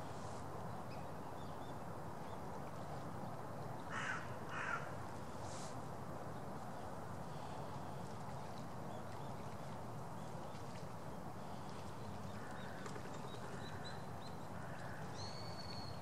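Steady outdoor background hiss, broken about four seconds in by two short, harsh, crow-like bird calls half a second apart. Faint thin high bird calls follow near the end.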